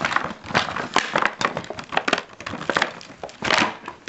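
Packaging of a new Rubik's Cube crinkling and crackling as it is struggled open by hand, in a quick run of irregular bursts.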